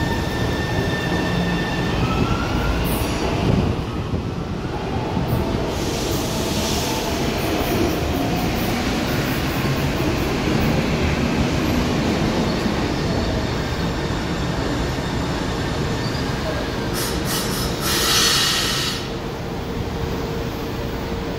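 São Paulo Metro train running into the station platform: a steady rumble of wheels on rail. Two short hisses come partway through, and a steady tone sets in over the last few seconds.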